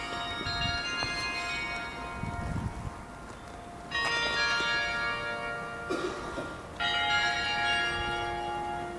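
Bells of the Riga City Council (Town Hall) building ringing: several pitched bell tones sound together and ring on long. Fresh strikes come in about four seconds in and again near seven seconds.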